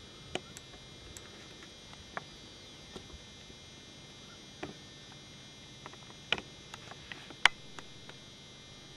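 Handheld camcorder handling noise: scattered sharp clicks and taps, the loudest about seven and a half seconds in, over the camera's steady faint hiss and thin electronic whine.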